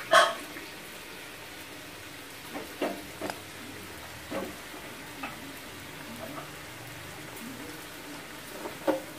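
Poori deep-frying in well-heated oil in a kadai, a steady sizzle, with steel tongs clicking against the pan several times, loudest right at the start.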